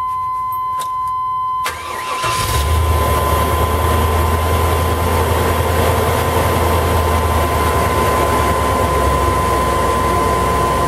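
A 2000 Chevy Express van's 5.7 L V8 cranked briefly by the starter about two seconds in, catching at once and settling into a smooth, steady idle: 'purring like a kitten' on fresh plugs, rotor, distributor cap and wires. A steady high-pitched beep tone sounds over it.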